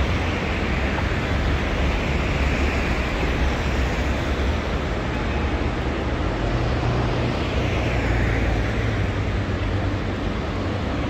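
City street traffic noise: vehicles running past with a steady low rumble, one passing more clearly about eight seconds in.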